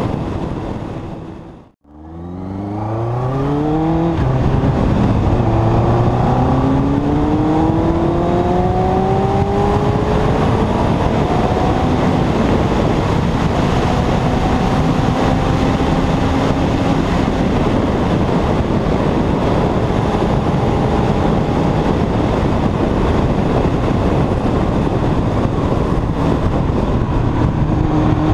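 2001 Yamaha YZF-R1's inline-four engine accelerating hard through several gears, its pitch rising in steps between upshifts, then holding a high steady note at speed under heavy wind rush on the microphone. The sound drops out briefly just before two seconds in, and the engine starts to climb again at the very end.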